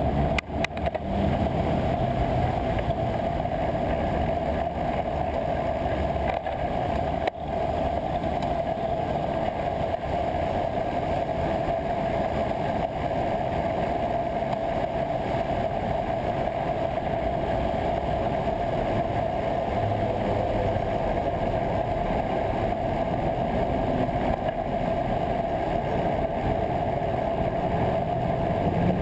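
Steady rolling and wind noise of a bicycle riding along a paved bridge bike path, with a hum of road traffic alongside. The noise dips briefly about half a second in and again about seven seconds in.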